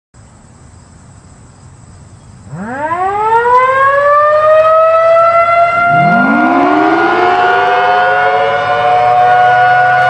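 Federal Signal Thunderbolt 1000T siren with a 4/5-port chopper winding up from a standstill. It is quiet at first, then starts about two and a half seconds in with a steep rising whine. A second, lower tone rises in about six seconds in, and the two settle into a loud, steady two-tone wail as the horn rotates.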